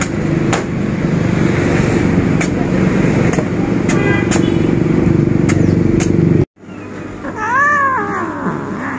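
Machete chopping a green coconut: a few sharp knocks over a steady traffic hum. After a sudden cut, a cat sick with feline calicivirus gives one long meow that rises and falls as its mouth is held open.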